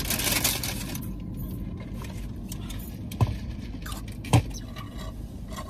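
Rustling and handling noise in a car cabin, with two sharp knocks about three and four seconds in, over a low steady rumble.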